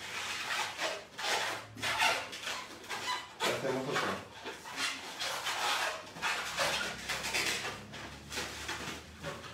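A white 260 latex modelling balloon being twisted and squeezed by hand into a bone shape: a string of irregular rubbery squeaks and rubbing.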